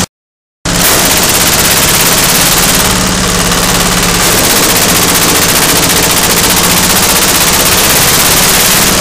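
Single-cylinder diesel engine driving a palm-frond chopper at full run, the blades shredding oil-palm fronds in a loud, fast, steady clatter. The sound cuts out for about half a second at the start, then resumes.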